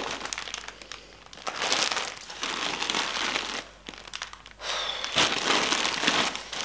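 Clear plastic bags of mini enamel pins crinkling as they are handled and shifted in bundles, in irregular bursts with short pauses.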